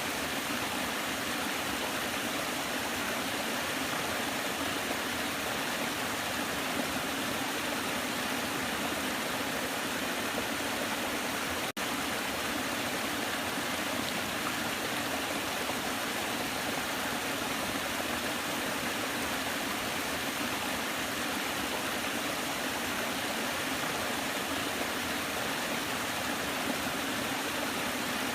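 Waterfall: water rushing in a steady, even roar, with one brief click about twelve seconds in.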